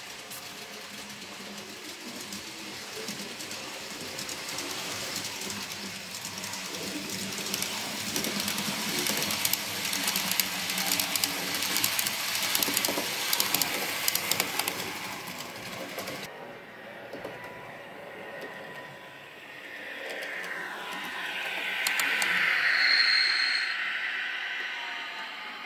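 N-scale model trains running on the track: a steady clatter of wheels and small clicks from a passing train, loudest about halfway through. Near the end a second train approaches and its motor hum rises.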